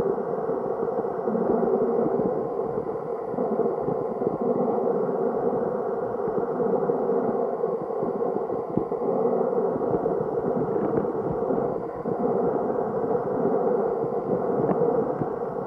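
Muffled, steady rush of river current heard underwater through the camera's waterproof housing, with no distinct events.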